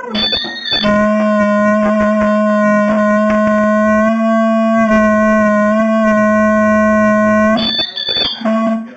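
A loud horn-like tone held steady at one pitch for about seven seconds, with short broken blasts just before and just after it.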